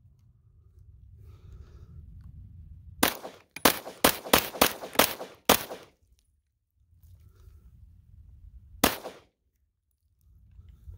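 Glock 17 9mm pistol being fired: a quick string of about eight shots in two and a half seconds, a pause, then a single shot near the end.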